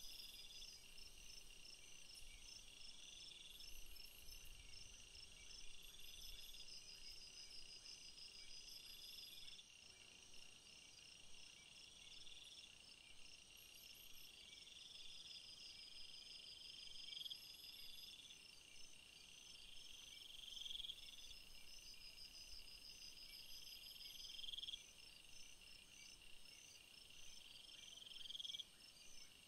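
Faint chirping of insects such as crickets: a steady high-pitched chirring with rapid pulsed trills, swelling every three to four seconds.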